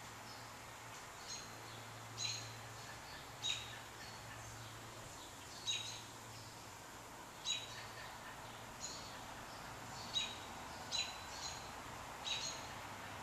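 A bird chirping: about ten short, sharp high calls, one every second or two, over a steady background hiss.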